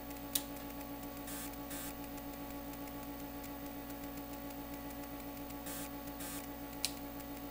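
Steady hum from running bench test instruments, with several fixed tones in it. Two sharp clicks, about half a second in and near the end, and a few brief soft rustles come as the signal generator's frequency is being changed.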